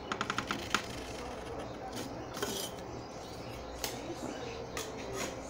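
A quick run of small clicks lasting under a second, then a few scattered light knocks and rustling: objects being handled on a tabletop.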